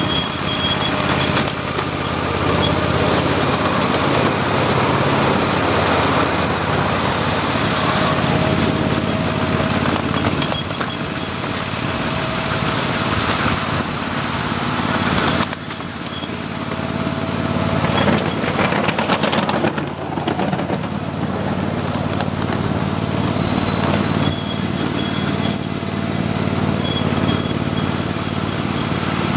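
Miniature ride-on train running along its track: a steady motor hum with the rattle and clicking of the cars' wheels on the rails.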